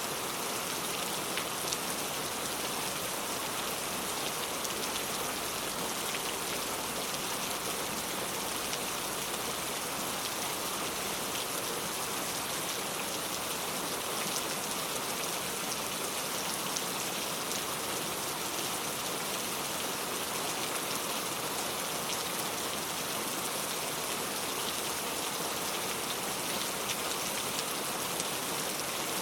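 Heavy rain falling steadily, a dense even hiss with scattered drops pattering on surfaces.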